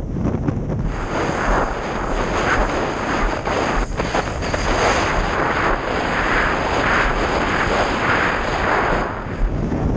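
Wind buffeting a mast-mounted camera's microphone and water rushing under a planing windsurf board, with a thin high whine held over most of it.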